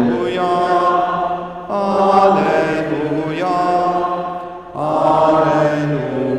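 A man's voice chanting a slow liturgical melody in three long phrases, holding each note, with short breaths about 1.7 and 4.7 seconds in.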